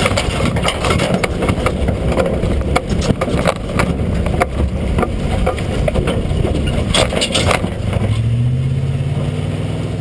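Lifted truck driving, heard from under the chassis beside a wheel. The engine runs steadily, with frequent knocks and rattles from the undercarriage, and the engine note rises near the end.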